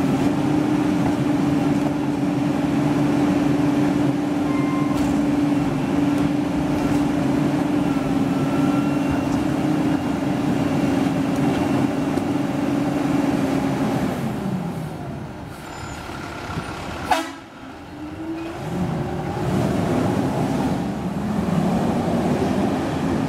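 Rear-loader garbage truck's engine running at raised revs with a steady drone while the hydraulic cart tipper works, then dropping back about two-thirds of the way through. A single sharp knock follows, and the engine revs up again near the end.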